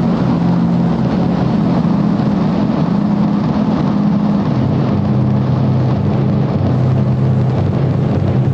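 Loud, distorted electronic noise music: a dense synthesizer roar with low bass notes stepping between pitches about every half second to a second, and no clear drum hits.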